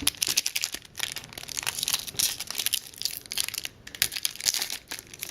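Plastic trading-card packaging crinkling and crumpling as the cards are handled, an irregular crackle with many small bursts.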